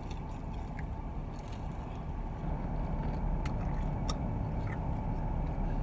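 Steady low rumble of car-interior noise in the cabin, with a few faint clicks.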